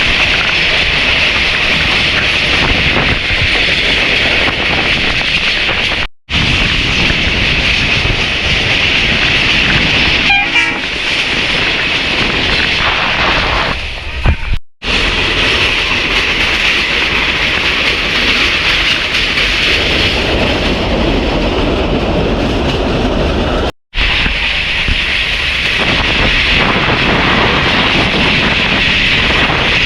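PeruRail passenger train running along the tracks: a steady rumble and hiss of wheels on rails. The sound cuts out abruptly three times and resumes at once.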